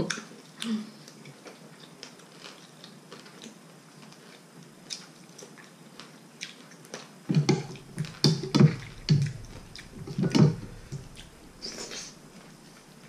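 Eating sounds: a man chewing and sucking on chicken feet from a bowl of noodle soup. It is faint with small clicks at first, then a run of loud wet mouth noises comes in short bursts from about seven seconds in.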